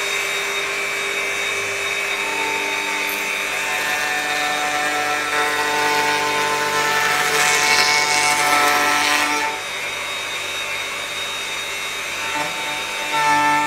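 Electric wood router running while surfacing a thick wooden board on a router sled. Its whine grows louder with a harsh cutting hiss in the middle as the bit bites into the wood, eases off about nine seconds in, and comes back under load near the end.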